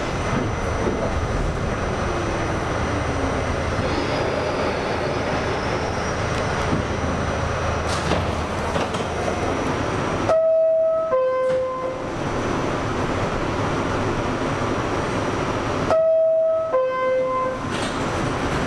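New York City subway train running with a steady rumble, broken twice, about six seconds apart, by the car's two-note descending door chime, a higher note then a lower one.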